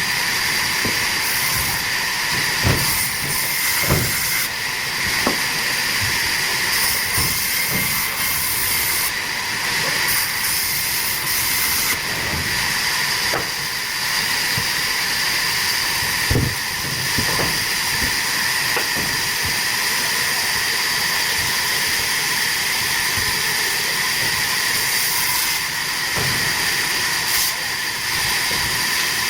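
Sawmill saw running through teakwood, a steady loud hiss with a high whine held throughout. A few short knocks sound over it, the strongest around 3, 4 and 16 seconds in.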